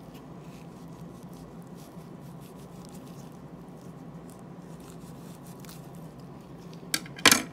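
Faint soft clicks and wet patter of a knife working through ripe cactus pear flesh, over a low steady hum. Near the end comes a short click, then a louder sharp knock.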